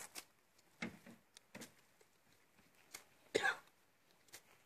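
A person's single short cough about three and a half seconds in, the loudest sound, among a few faint scuffs and knocks.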